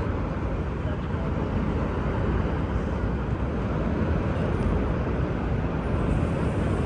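Steady low rumble of city traffic, with no distinct events.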